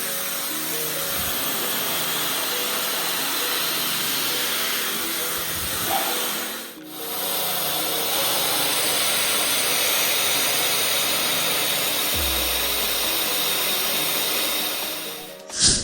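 Laifen Mini compact hair dryer running: a steady rush of air with a high, even motor whine. It drops out for a moment about seven seconds in, then ends with a short loud burst just before stopping.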